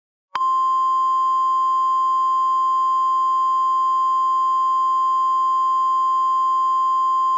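NOAA Weather Radio warning alarm tone: a single loud, steady 1050 Hz tone, with a fainter lower tone beneath it, starting about a third of a second in and holding. It signals that a warning message is about to be broadcast.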